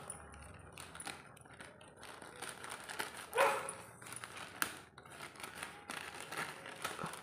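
Parcel packaging being handled and opened: scattered crinkles and clicks. A short pitched yelp-like call sounds about three and a half seconds in.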